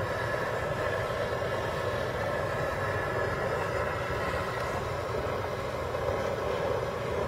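Handheld Bernzomatic propane torch burning steadily as its flame heats an aluminium engine crankcase around the crankshaft, warming the case so the halves will separate more easily.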